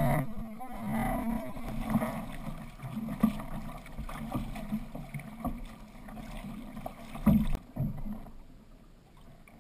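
Six-person outrigger canoe under paddle: blades splashing into the sea in uneven strokes and water rushing past the hull and outrigger float. There is one louder stroke about seven seconds in, then it goes quieter as the paddling stops.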